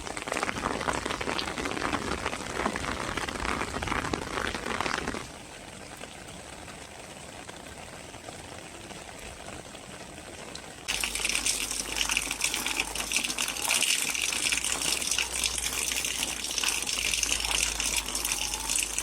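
Rain falling steadily, with abrupt changes in sound. About five seconds in it drops to a quieter patter, and about eleven seconds in a louder, hissier rush of rain begins, with a low rumble underneath.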